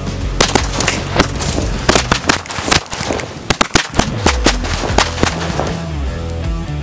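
A bottleful of firecrackers going off in a rapid, irregular string of sharp bangs, starting about half a second in and lasting about five seconds. Background rock music plays under it.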